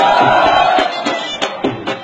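Mourners' hands slapping their chests in unison during matam, sharp rhythmic strikes about three to four a second. Over the first second a loud held vocal cry of chanting rides over the beating.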